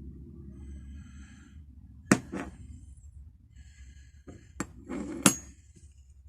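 Metal hand tools handled and knocked down on a workbench: about five sharp clacks, two close together about two seconds in and three more near the end, the last and loudest one ringing briefly, over a low hum.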